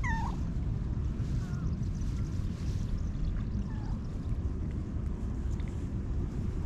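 Wind buffeting the camera microphone, a steady low rumble. Right at the start a ginger cat gives one short falling meow, and a few fainter short calls follow.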